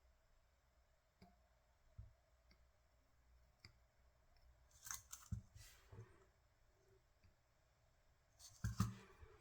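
Small hand tools and parts being handled at a workbench: a few faint sharp clicks and snips, with a louder cluster about five seconds in and again near the end.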